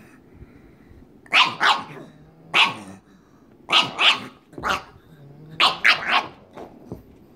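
Pug barking in play, about ten short barks in clusters of two or three, with a low growl between some of them. The barks come from a pug crouched in a play bow, inviting another dog to play.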